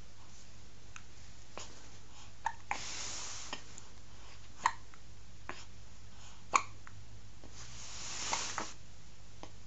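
Newborn baby hiccupping: three short, sharp hics about two seconds apart, with two longer soft breathy sounds between them.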